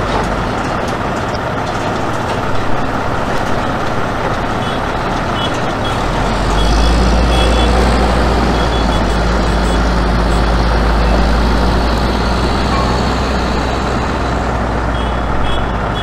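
Diesel car-carrier semi-truck running and moving slowly past, a loud steady engine noise with a deep rumble that swells about six seconds in and eases off near the end. A few short high-pitched beeps sound now and then, twice in small clusters.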